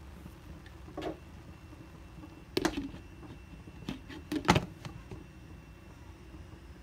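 A few sharp clinks and knocks of a glass lid and cooking pot being handled, the loudest about halfway through, over a low steady hum.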